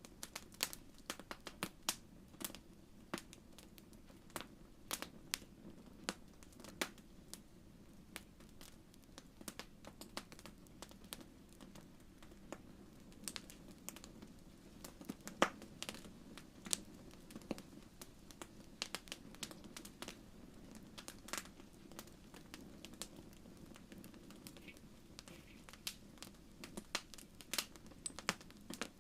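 Wood fire crackling in a fireplace: irregular sharp pops and snaps scattered over a low, steady hiss of the burning.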